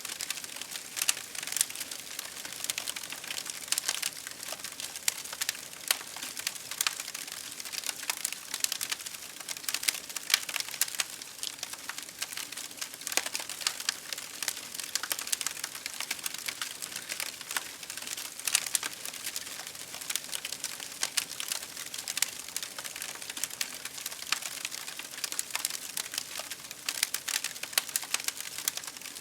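Campfire crackling: dense, irregular pops and snaps over a steady hiss of rain.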